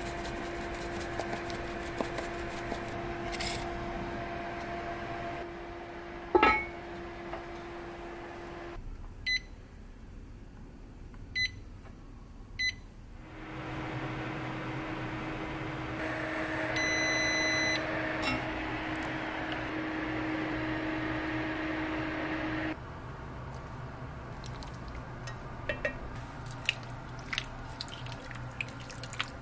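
A steady hum with a single knock about six seconds in, then three short electronic beeps and, later, one longer beep from the Vermicular rice pot's heater control panel. Near the end come light clicks and taps of a spatula stirring stew in the cast-iron pot.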